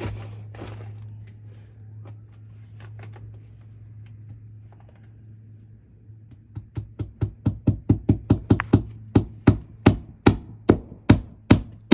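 Hammer blows, even and rapid at about four a second, starting about six and a half seconds in and growing louder; a few faint scattered taps before them.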